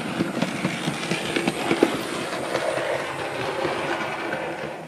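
Model train running on the layout's track close to the microphone: a steady rattle of wheels clicking over the rails, which dies away right at the end.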